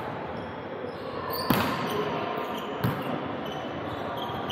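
A volleyball being hit twice during a rally, about a second and a half apart. Each hit is a sharp slap that echoes in a large gym hall.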